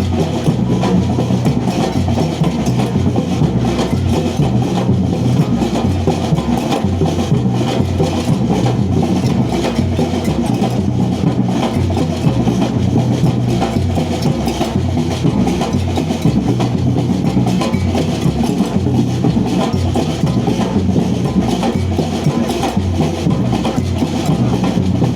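Street drummers playing a steady, dense rhythm, with a repeating deep beat under quicker strokes.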